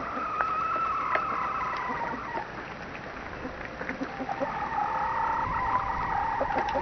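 Chickens calling: a long, drawn-out call at the start and another from about four seconds in, with short soft clucks and scratching clicks between.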